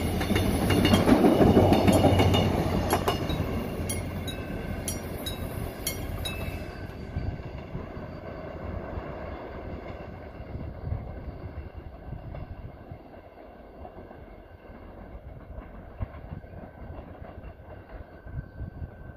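Korail Mugunghwa-ho passenger train hauled by a diesel locomotive going by close, its wheels clicking over the rail joints for the first several seconds, then a low rumble that fades steadily as the train draws away.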